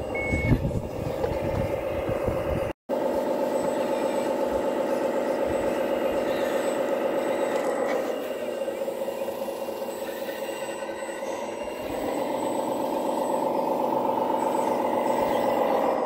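Radio-controlled wheel loader's sound module playing a simulated diesel engine drone. The pitch drops about halfway through and rises again a few seconds later as the machine is driven.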